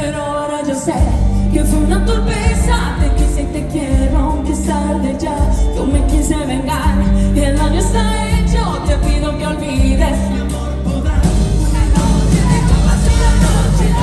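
Live pop concert music: a woman singing into a handheld microphone over an amplified band with a strong, steady bass.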